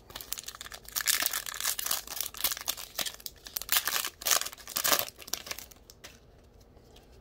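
Foil wrapper of a Donruss football card pack crinkling and tearing as it is ripped open by hand, a run of sharp crackling rustles that stops about six seconds in.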